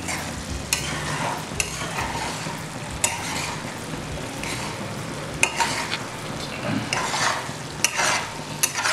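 A flat spatula stirring and scraping through thick mutton ghee-roast gravy in a kadai, over a steady sizzle of the gravy frying in ghee as it reduces toward a dry roast. Several short scrapes of the spatula against the pan come every second or two.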